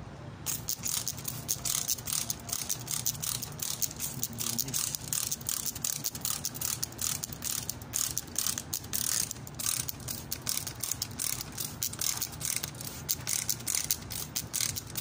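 Hand-held trigger spray bottle squeezed over and over, giving a quick uneven run of short hissing squirts and trigger clicks as water is sprayed onto dry garden soil.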